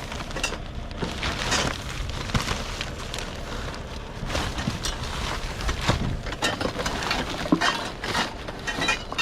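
Items from a curbside junk pile being rummaged through and handled: irregular knocks, clatters and rustles over a steady low rumble.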